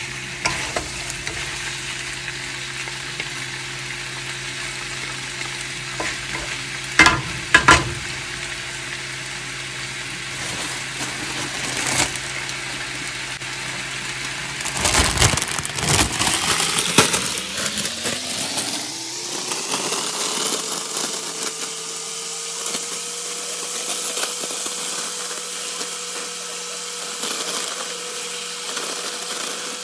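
Food sizzling as it fries in a pan, with stirring and a few sharp clanks. About halfway through a rising whine starts up and settles into a steady hum.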